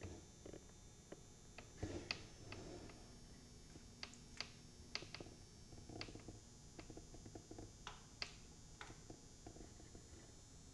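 Faint, irregular small clicks and taps, about a dozen spread unevenly, from small computer parts being handled and fiddled with, over near-silent room tone.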